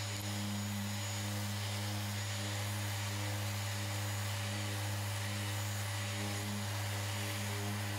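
Electric random orbital sander running steadily with a constant low hum, dry-sanding cured clear coat on a carbon-fibre roof with P500 Kovax abrasive to flatten it to an even matte before recoating.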